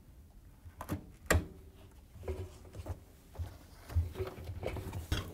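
Rubber door boot of a front-load washer being peeled off the front panel and pushed into the drum by gloved hands: two sharp knocks about a second in, then soft rubbing and small clicks of the rubber and panel being handled.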